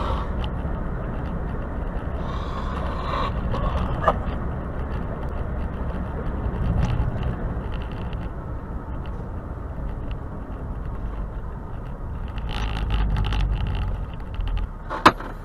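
Steady low road and engine rumble heard from inside a vehicle driving on a highway, with a sharp click near the end.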